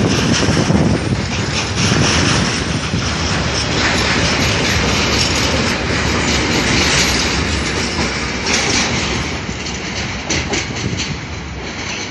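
Intermodal freight train's container and tank-container wagons rolling past close by, with wheels clicking over the rail joints. The noise eases off near the end as the train moves away.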